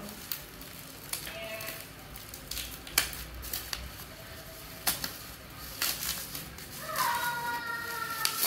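Plastic bubble wrap crinkling and rustling as it is pulled and snipped off an electric scooter's handlebar, with several sharp clicks. A short high-pitched voice-like sound comes near the end.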